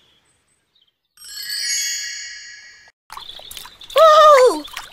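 A short chime of several ringing tones starts about a second in and fades out over under two seconds, marking the turn to the next page of the story. Then water splashing begins, and near the end a cartoon voice gives a long, gliding 'Ooh'.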